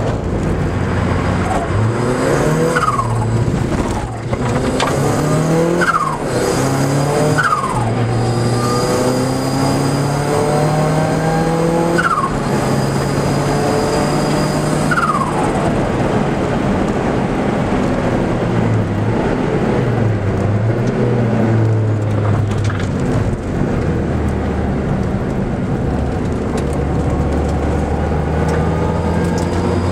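Car engine heard from inside the cabin while lapping a race track, revs climbing and dropping back at several gear changes in the first half, then rising and falling through the corners.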